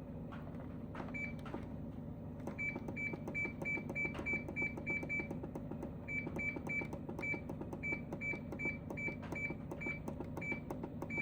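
Control panel of a GE window air conditioner giving a short, high beep with each press of the delay button, about two dozen beeps in quick runs of two to three a second with short pauses between, as the delay timer is stepped up toward 24 hours. A faint click comes with each beep.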